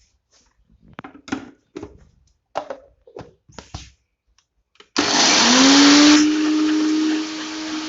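A few short knocks and clatter, then an electric mixer grinder (mixie) starts, its motor whine rising quickly to a steady pitch as it coarse-grinds chana dal, and runs loud and steady to the end.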